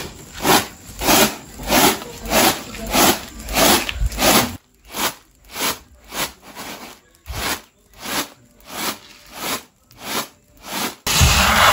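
Unhusked rice grains swishing and rattling across a woven bamboo winnowing tray as it is shaken and tossed in a steady rhythm, about three strokes every two seconds, to separate the grain from chaff and husks. Shortly before the end this cuts off and a louder, steadier noise takes over.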